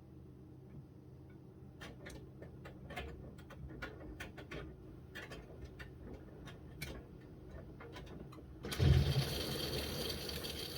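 Miele W1 washing machine running with a low motor hum and light irregular clicks and knocks from the turning drum. About nine seconds in a sudden thump is followed by a steady loud rushing hiss, like the water inlet valve opening and water flowing into the machine.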